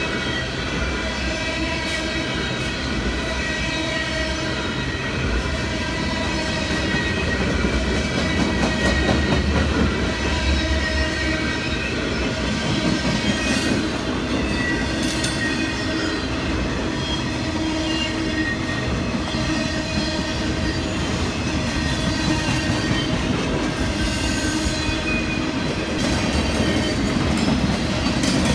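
A freight train rolling past, its wheels squealing in steady high-pitched tones over a continuous rumble, with clacking from the wheels over the rail joints.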